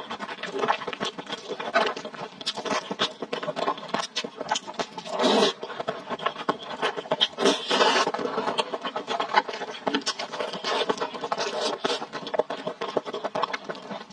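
Close-miked wet eating sounds: chewing and slurping of saucy tomato Buldak instant noodles and tomato, a busy stream of small clicks and smacks with louder bursts about five seconds in and again near eight seconds.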